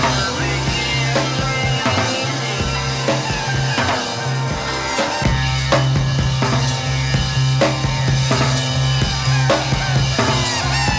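Background instrumental music with a drum kit, a steady beat and a bass line.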